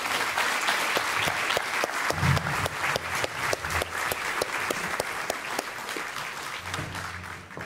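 Audience applauding: many hands clapping in a dense, steady patter that thins and fades out near the end.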